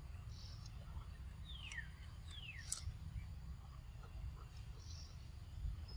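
Outdoor ambience: a steady low rumble, with two falling whistled bird calls about a second and a half and two seconds in, then a sharp click.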